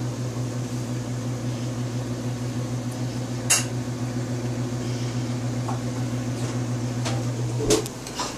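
Hamilton Beach microwave oven running with a steady hum, which stops near the end with a click. There is one sharp click partway through.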